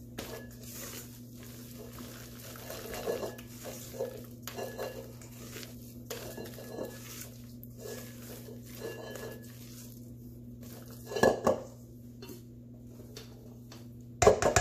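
Silicone spatula folding beaten egg whites into cake batter in a stainless steel bowl: soft, repeated scraping strokes against the metal over a steady low hum. There is a louder clatter of the spatula against the bowl about eleven seconds in, and a louder one near the end.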